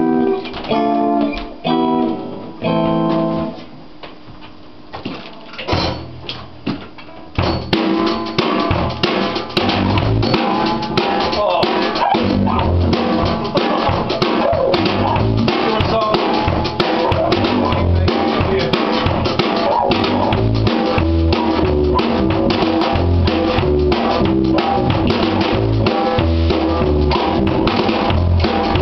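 Live rock band playing an instrumental intro: a few electric guitar chords, a quieter pause, then the drum kit and bass come in about seven seconds in, and the full band keeps a steady beat.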